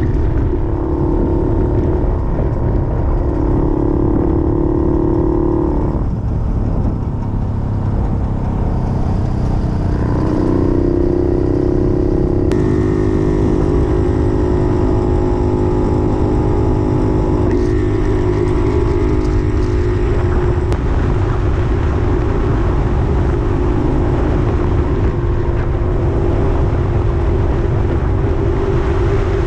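Puch 250 TF's two-stroke split-single engine running under way, its note shifting in pitch several times, over a steady rush of wind and road noise.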